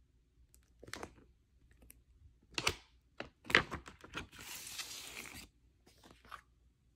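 A large paper record insert being handled and unfolded, with crisp rustles and crackles about one second in and again around three seconds in. A steadier sliding rustle of paper follows for about a second, then a couple of small rustles near the end.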